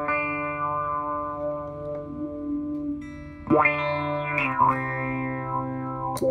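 Electric guitar through an EarthQuaker Devices Spatial Delivery envelope filter in upward sweep mode, band- and low-pass filters blended. A chord rings on, then a fresh strum about three and a half seconds in opens the filter with a bright, shifting tone. Near the end there is a sharp click as the pedal is switched.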